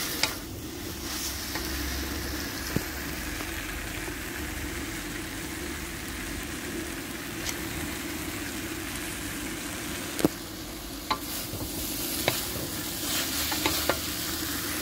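Rice noodles, egg and bean sprouts sizzling as they are stir-fried for pad thai in a wok over a gas burner. A wooden spatula scrapes and knocks against the wok, with a few sharp knocks; the loudest comes about ten seconds in, and there is a quick cluster of them near the end.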